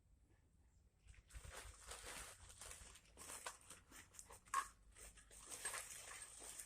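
Faint rustling and scraping with scattered sharp clicks, starting about a second in: small objects being handled and rubbed.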